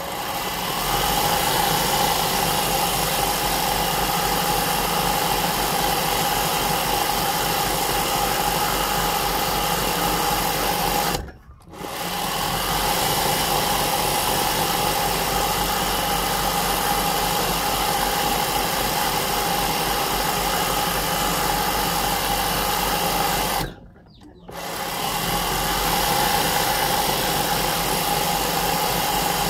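Sewing machine running steadily while doing free-motion embroidery, the needle stitching through the fabric with a darning foot. It stops briefly twice, about eleven seconds in and again about twenty-four seconds in, then starts running again each time.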